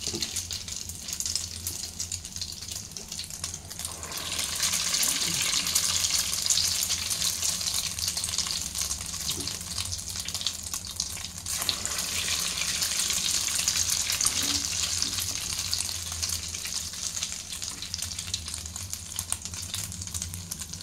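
Egg-dipped, bread-crumb-coated mutton kababs deep-frying in hot oil in a kadai: a steady sizzle and crackle of bubbling oil that grows louder about four seconds in.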